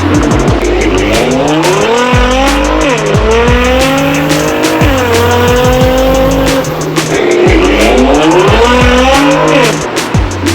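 Sound-effect sports-car engine revving up through the gears, its pitch climbing and dropping back at each shift, then climbing again near the end, over electronic beat music.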